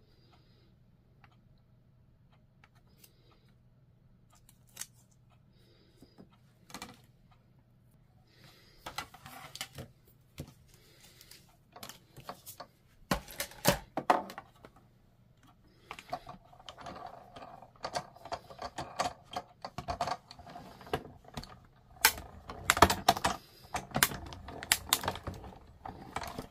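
Clicks, taps and paper rustling as paper and die-cutting plates are handled. A few scattered clicks at first, then busier and louder handling from about eight seconds in.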